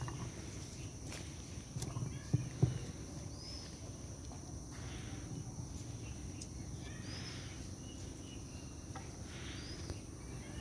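Faint open-air background with a steady high hum, a few thumps about two seconds in, and short high chirps recurring every couple of seconds.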